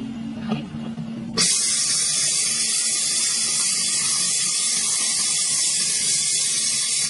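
Handheld laser torch working into a rusty steel pipe, throwing sparks: a low hum, then a loud, steady high hiss that starts about a second and a half in.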